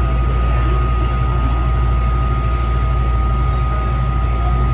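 Taichung MRT Green Line metro train: a steady low rumble with a constant thin whine over it.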